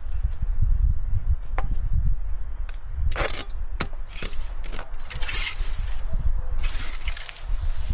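Hand-tool work on wood or earth: a few sharp knocks and several stretches of scraping over a steady low rumble.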